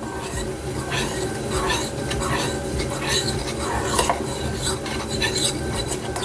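Utensil stirring coconut milk powder into water in a bowl, scraping against the bowl in repeated strokes to break up the lumps.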